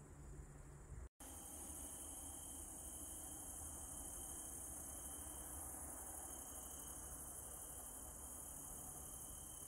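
Crickets chirring in a steady, high-pitched drone that starts about a second in, right after a brief dropout; before it there is only faint low background noise.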